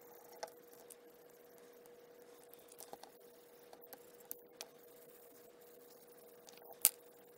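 Faint handling sounds of fingers rubbing and dabbing cardstock and shifting it on a craft mat: scattered light taps and ticks, with one sharper click near the end, over a steady low hum.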